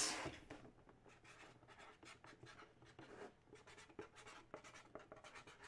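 Felt-tip marker scratching faintly in short strokes as a name is written on a tape label stuck to a plastic mini helmet.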